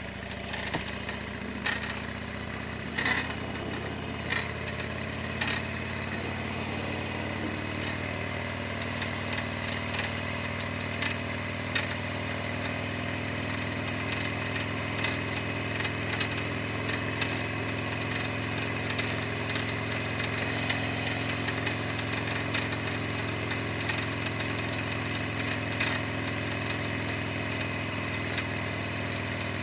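Harley-Davidson Sportster XL1200's V-twin engine running steadily at an even pitch. Several sharp clicks or knocks sound over it in the first few seconds.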